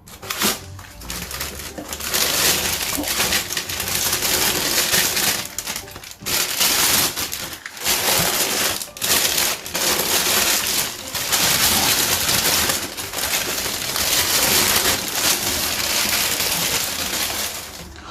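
Boot packaging wrapping being handled and pulled away, a loud, continuous crinkling and rustling with many sharp crackles. It dies down near the end.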